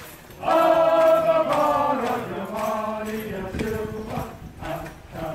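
A group of men's voices chanting a marching call in unison, holding long notes, loudest in the first two seconds. Marching footsteps come in during the second half.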